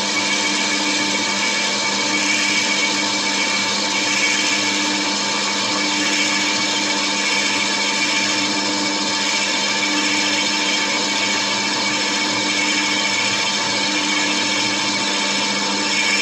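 Lathe running and cutting: a steady motor hum with several constant tones over an even grinding hiss.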